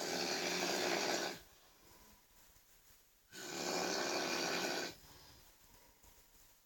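A sleeping person snoring loudly: two heavy snores, each about a second and a half long and about three seconds apart, with quiet between them.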